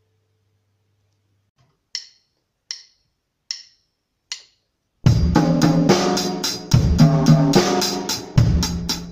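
Four sharp drumstick clicks about 0.8 s apart count in the piece, then a drum kit starts playing over a pitched accompaniment about five seconds in.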